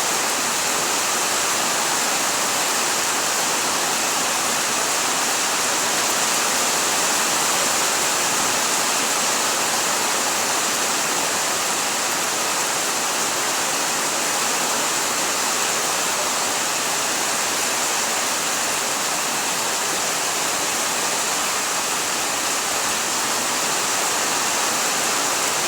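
Rain falling steadily: a dense, even hiss that holds at the same level throughout.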